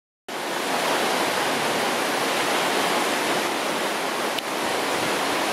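River in flood rushing over rapids: a loud, steady roar of churning white water that cuts in suddenly just after the start.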